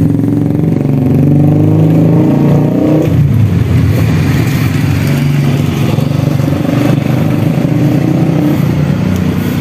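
Motorcycle engine running close by. Its pitch rises over the first three seconds, falls back sharply, then holds steady.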